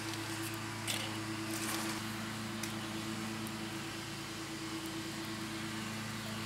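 A steady low machine hum, with a few faint clicks in the first two seconds.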